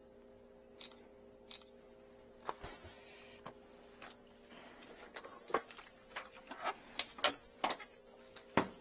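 Scattered clicks, taps and rustles of hands handling gear and gloves, coming more often in the second half, with the sharpest knock near the end, over a faint steady hum.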